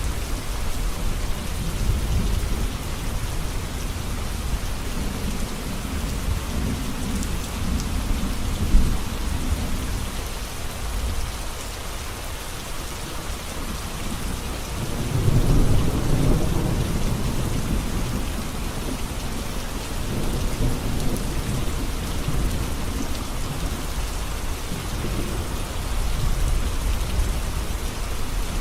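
Heavy rain falling steadily on a road, with low rolling rumbles of thunder that swell and fade, the loudest about fifteen seconds in.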